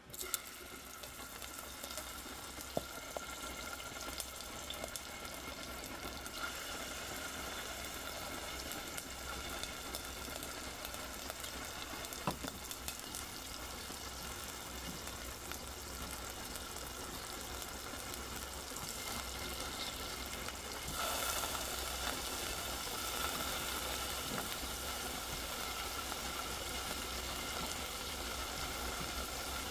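Hot oil sizzling steadily in a frying pan, with scattered small pops; it gets louder about two-thirds of the way through.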